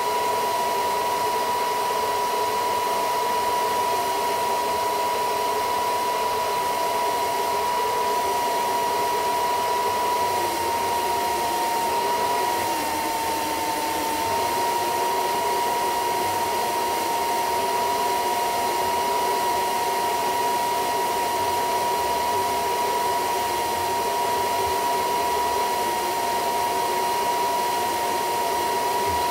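Hair dryer running steadily with a high whine, blowing hot air onto a phone's back glass to soften the tape adhesive. The whine sags slightly in pitch for a moment about halfway through.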